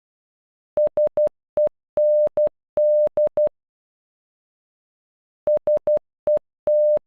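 Morse code for "SEND" played as beeps of one steady electronic tone: three short, one short, long-short, long-short-short. After a pause of about two seconds the word starts over.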